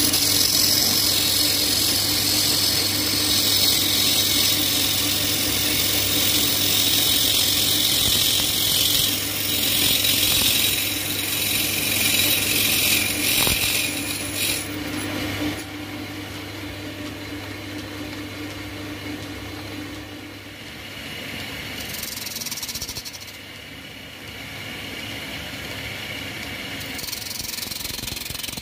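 Wood lathe spinning a wooden bowl blank while a hand-held chisel cuts into it, giving a steady hissing scrape of shavings over the hum of the machine. The cutting is loud for about the first fifteen seconds, then goes on more quietly.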